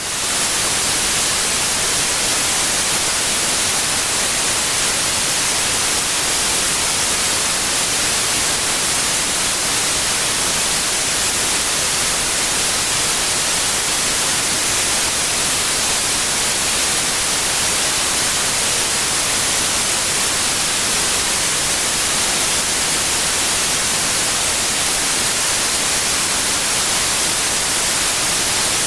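Steady white noise for tinnitus masking: an even, unchanging hiss with no tones or events, panned to the left side.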